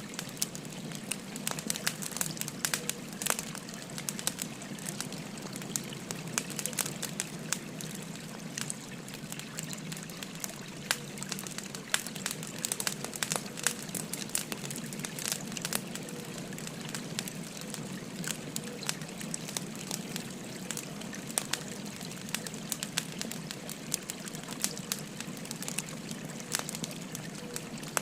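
Wood fire crackling with frequent sharp, irregular pops over the steady babble of a flowing river.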